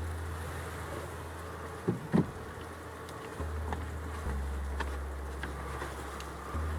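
Honey bees buzzing steadily around an open hive being fed sugar, with a couple of short knocks about two seconds in.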